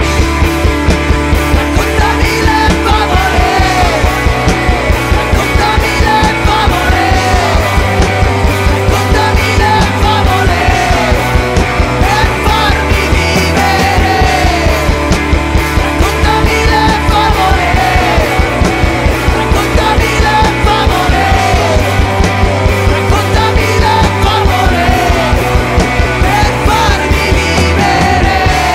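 Alternative rock song by a full band, loud and dense, with a steady beat, a bass line that changes note every second or two, and a short arching melodic figure that repeats about once a second.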